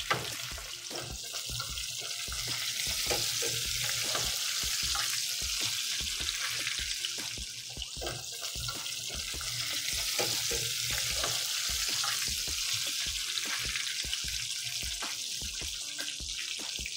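Battered brook trout frying in hot oil in a stainless skillet: a steady sizzling hiss with many small crackles and pops.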